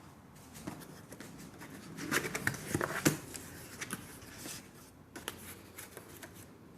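A socket set's packaging being opened and handled: rustling, scraping and sharp clicks, busiest about two to three seconds in, with the loudest click at about three seconds.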